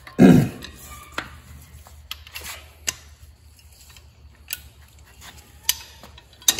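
Scattered metal clicks and clinks of hand tools, a socket and breaker bar, being handled and set down among other tools, about one every second. A short vocal sound comes right at the start.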